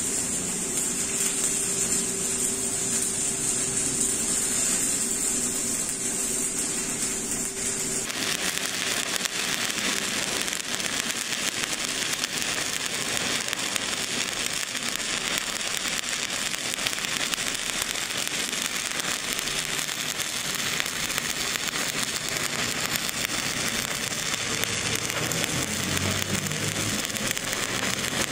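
Electric arc welding on a round metal pipe: the arc crackles and sizzles steadily and without a break. About eight seconds in the crackle changes character abruptly and takes on a brighter hiss.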